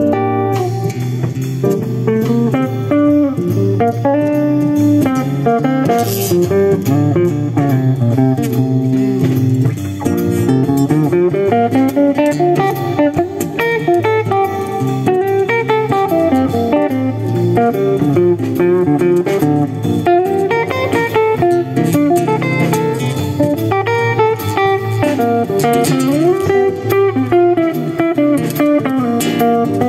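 Instrumental passage of a band's song: a guitar plays a melodic solo over a bass line and drums.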